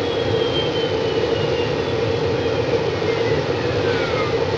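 Steady engine-like drone with a strong hum, with thin whistling tones that slowly slide down in pitch.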